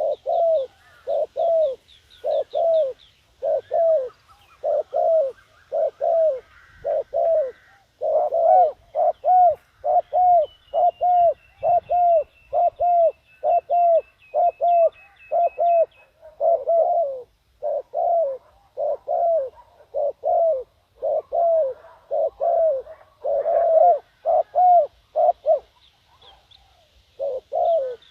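Spotted doves cooing: a rapid run of short, arched coo notes, about two a second, with a short pause near the end. Small birds chirp faintly high above, and a thin high whistle sounds in the middle.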